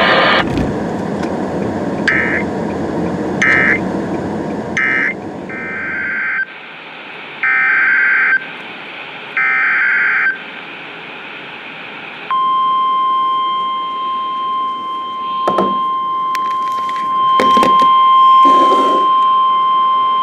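Emergency Alert System SAME data bursts: the short end-of-message bursts over radio hiss, then the longer header bursts of the next alert. About twelve seconds in, the steady 1050 Hz NOAA Weather Radio attention tone starts, with a few crackles of static over it.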